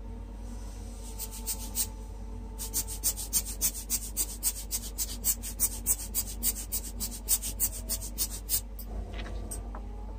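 Rapid, even puffs of air from a hand-squeezed air blower aimed at wet alcohol ink, about three hissing puffs a second, with a short break about two seconds in, stopping near the end.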